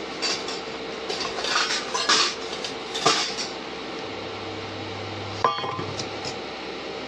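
Steel kitchen utensils and pots clattering: a run of clinks and scrapes over the first three seconds or so, then a single metal clang that rings briefly about five and a half seconds in.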